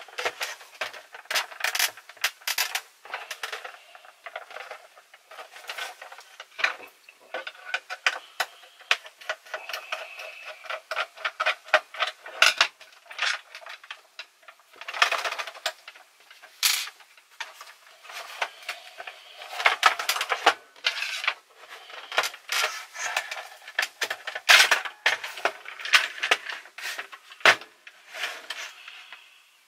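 Plastic housing of a Philips N2234 cassette recorder being handled, turned over and opened, giving a steady run of sharp clicks, knocks and rattles.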